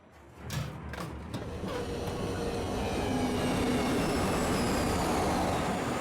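A few clicks near the start, then a rumbling, rushing vehicle noise that builds up over a couple of seconds and holds steady, like a train passing or pulling in.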